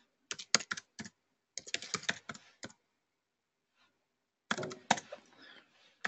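Typing on a computer keyboard: two quick runs of key clicks, a pause of about a second and a half, then another run of keystrokes.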